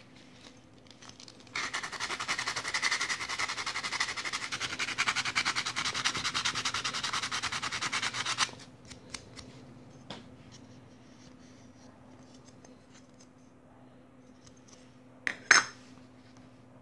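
Thin aluminium disc for a homemade pop-pop engine being rubbed and worked by hand: a fast, dense scratchy rasping from about a second and a half in until about eight and a half seconds. Near the end, a single sharp tap as the disc is set down on a wooden floor.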